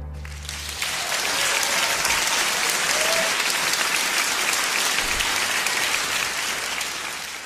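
Large concert-hall audience applauding. The last low notes of the orchestra's final chord die away in the first second as the clapping rises. The clapping then holds steady and fades near the end.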